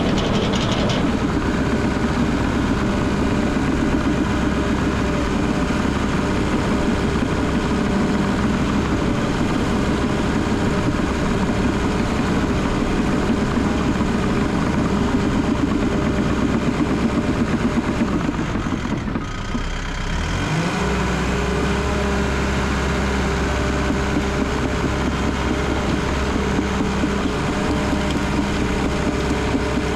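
Cat D3 bulldozer's diesel engine running under load, heard from the operator's seat as the blade pushes downed pine logs and brush. About two-thirds of the way through the sound dips briefly, then the engine settles into a steadier note.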